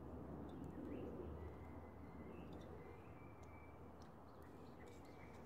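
Near silence: faint room tone with a steady low hum and a few faint, short, high chirps.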